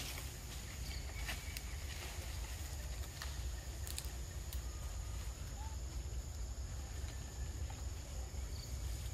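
Forest ambience: a steady low rumble, a constant high insect drone, and a few scattered light clicks.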